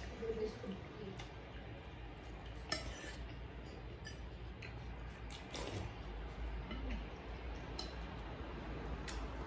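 Spoon clinking against a soup bowl during eating, a few sharp scattered clinks, the clearest about three seconds in.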